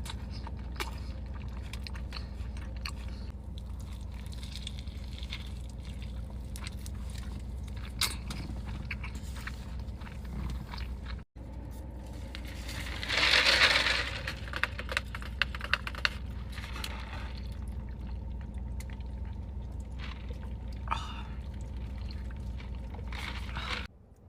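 Close-miked mukbang eating sounds: chewing with scattered small mouth clicks over a steady low hum. A louder burst of noise lasting about a second comes a little past the middle.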